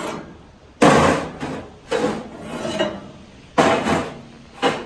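Metal rods being pulled out of a barbecue grill and set down: a series of about five sharp scrapes and knocks, roughly a second apart, the loudest about a second in.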